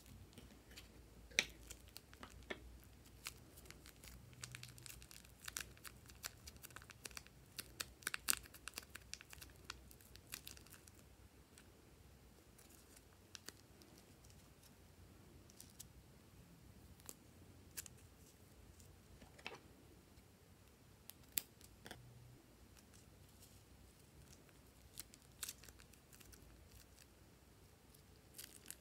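Clear plastic piping bags crinkling as they are handled and snipped open with scissors. Quiet, scattered sharp clicks and crackles, busiest in the first ten seconds or so, then sparse.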